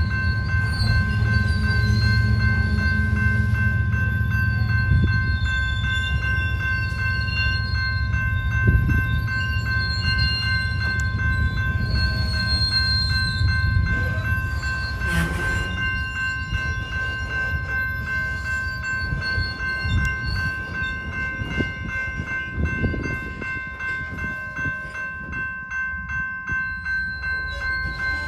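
General Signals type 2 electronic crossing bell ringing steadily while a freight train of covered hopper cars rolls through the crossing, its wheels rumbling and clicking over the rails. The rumble eases a little in the last several seconds.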